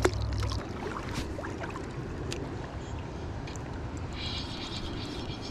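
River current flowing and lapping around a wading angler, close to the microphone, with a few faint clicks. About four seconds in, a thin steady hiss joins.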